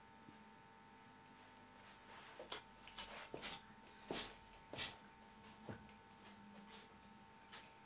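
Whiteboard marker drawing on the board: about ten short, quick strokes and dabs bunched between about two and six seconds in, with one more near the end, over a faint steady hum.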